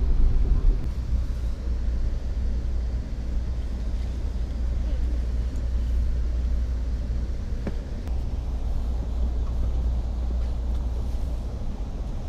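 Low, steady rumble of a passenger train heard from inside the coach, a little louder in the first second.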